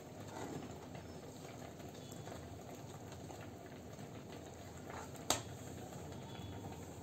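Metal spoon scraping and stirring a dry flour-and-sugar mix in a bowl, soft and faint. A single sharp clink about five seconds in.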